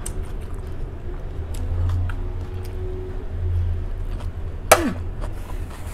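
Close-up eating sounds of crisp lettuce salad: soft chewing with scattered small crunches over a low steady hum, and one sharp slurp, falling in pitch, about three-quarters of the way through as a spoonful goes into the mouth.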